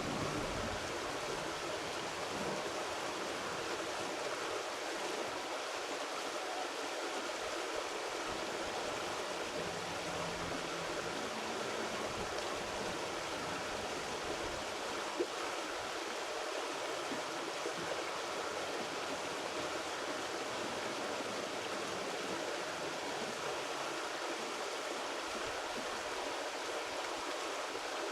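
Creek water rushing steadily, with one faint click about halfway through.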